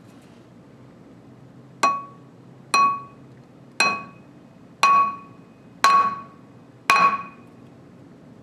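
Hammer striking a screw extractor into a drilled-out broken bolt in a flywheel: six sharp metallic blows about once a second, each ringing briefly.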